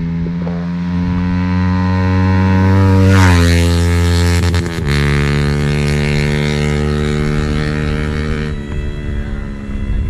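Yamaha MT-15's single-cylinder engine running through an Akrapovic full-system exhaust at steady revs: a loud, even exhaust note that drops in pitch about three seconds in and shifts again about five seconds in.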